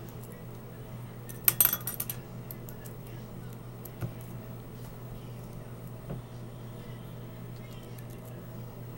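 Metal clinking from handling a Master Lock No. 140 padlock and lock picks: a quick cluster of sharp clinks about a second and a half in, then a few scattered light ticks.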